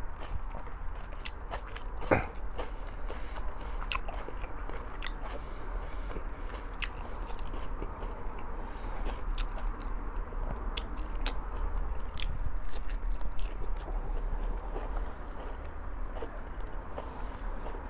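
Close-miked chewing and eating with many small wet mouth clicks over a steady low hum. There is one louder knock about two seconds in.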